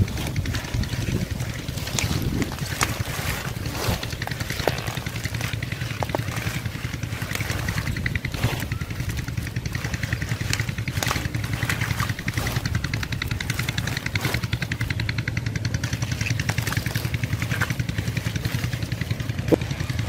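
A small engine running steadily with a fast, even pulse, over occasional rustles, snaps and splashes of water hyacinth being pulled out of shallow water.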